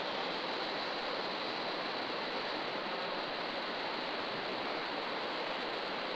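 Steady rushing noise of a wind tunnel's airflow, even and unchanging.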